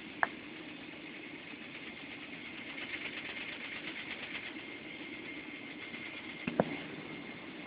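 Boeing 777-300ER's GE90 engines heard from inside the cabin while the jet taxis: a steady hum with a thin high whine. A faint fast rattle rises around the middle, and two sharp knocks come just after the start and near the end.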